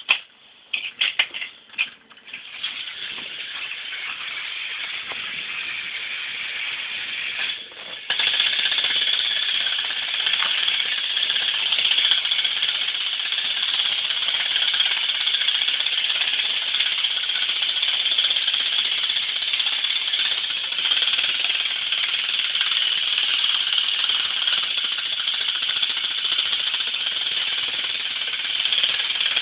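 Motorised Thomas & Friends toy engines whirring and rattling steadily as their small electric motors and plastic gears run on the track, after a few clicks at the start; the whir gets louder about eight seconds in.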